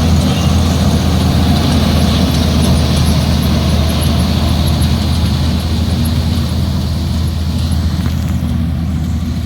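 Harvest machinery engine running steadily with a low, even hum, easing slightly near the end.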